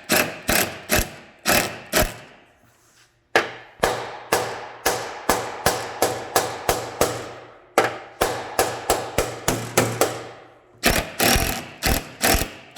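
Slide hammer striking again and again to pull a glued tab on a dented aluminium panel in a glue-pull dent repair: sharp metallic knocks, each ringing briefly, about two to three a second with a short pause about two seconds in.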